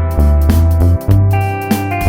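Electronic music with a heavy bass line, sustained keyboard notes and a steady drum beat.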